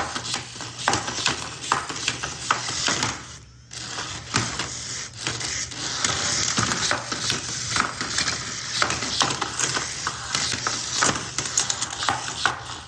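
Small remote-control toy battle robots clattering and knocking against each other and the arena walls: a busy, irregular rattle of plastic clicks and knocks with a brief pause about three and a half seconds in.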